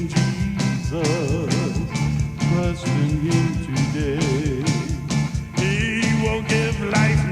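A band playing an instrumental break of a country-gospel song: a lead line of bending, wavering notes over a steady drum beat and bass.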